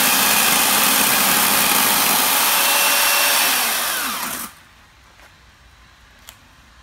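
Chainsaw carving into a thick bonsai trunk at full speed, then released about four seconds in: the motor winds down in a falling whine and stops. A faint click follows shortly after.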